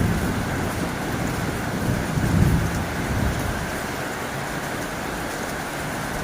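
Heavy rain falling on a tin roof as a steady hiss, with a low rumble that swells briefly about two seconds in.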